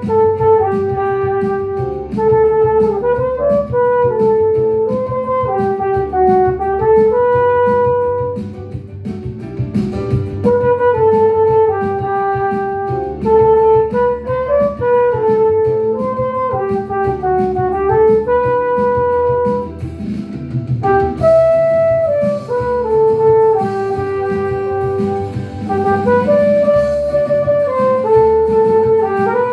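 Flugelhorn playing a pop melody in held notes and smooth phrases over a recorded backing track, with short breaks between phrases about 9 and 20 seconds in.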